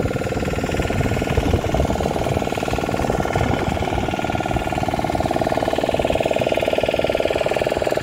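Engine of a motorised wooden river boat running steadily while underway, with a fast even beat, and wind buffeting the microphone.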